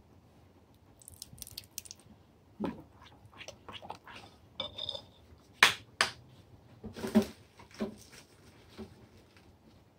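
Metal spoon stirring a thick, wet marinade paste in a glass bowl: irregular squelches and scrapes, with a few sharp clinks of the spoon against the glass, the loudest a little past halfway.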